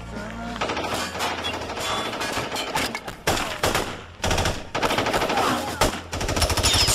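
Rapid automatic gunfire in long bursts, with short breaks about three, four and six seconds in.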